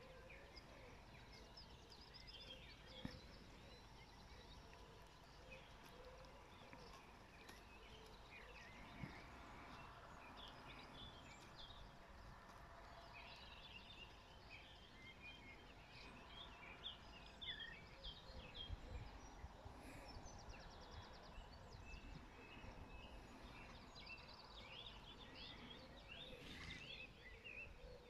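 Faint outdoor ambience of songbirds singing, many short scattered chirps and trills. Low wind rumble on the microphone comes and goes and is strongest about two-thirds of the way through.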